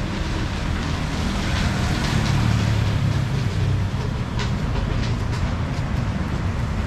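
Street traffic rumble, with a heavy vehicle passing close, swelling about two seconds in and easing off after.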